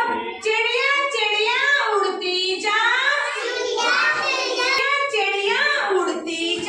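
Children singing a Hindi nursery rhyme in high voices, without a break.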